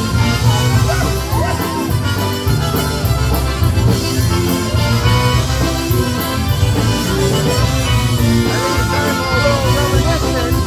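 Chicago-style polka band playing live: an instrumental passage over a steady bass and drum beat.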